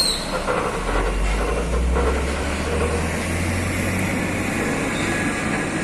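Heavy truck's diesel engine running, its low drone coming up about a second in and rising in pitch around three seconds in, over steady road and machinery noise. A short high squeak sounds right at the start.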